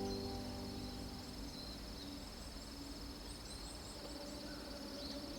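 Steady high-pitched insect trill, typical of crickets, unbroken throughout, with a few short high chirps over it. In the first second a strummed guitar fades out.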